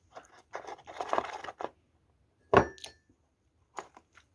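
Thin plastic chocolate mold tray being handled: crinkling and rustling, then one sharp tap about two and a half seconds in and a few light ticks near the end.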